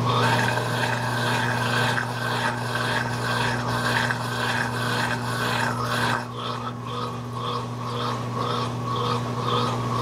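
Brastemp 16 kg BWK16 washing machine agitating a queen-size bedspread during the wash stage of its comforter programme: a steady motor hum under a rhythmic rubbing and swishing of the wet load, about two strokes a second.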